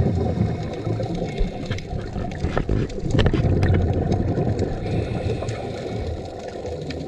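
Muffled underwater noise picked up through a dive camera's housing: a steady low rumble of moving water with scattered clicks and crackles.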